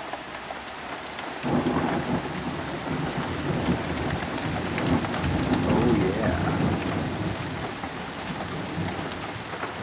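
Heavy rain pouring steadily, with a long low rumble of thunder that starts about a second and a half in, swells, and fades out near the end.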